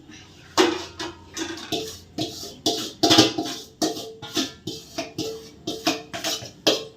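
Background music with a steady percussive beat, about two to three strikes a second, over a held note.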